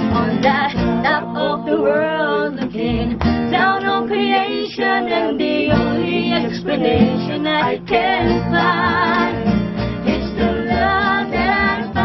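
A small acoustic band playing: two acoustic guitars strummed and plucked over an upright double bass, with a female voice singing along.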